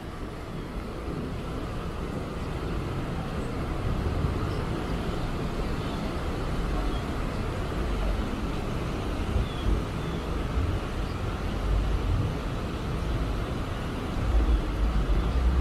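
Road traffic on wet pavement: a steady hiss of tyres with the low rumble of passing vehicles, growing louder about fourteen seconds in as a heavier vehicle goes by.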